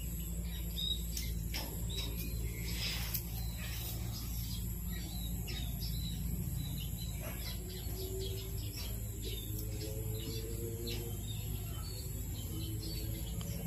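Foil wrapper of a chocolate football crinkling in short, scattered crackles as small fingers peel it open, over a steady low hum.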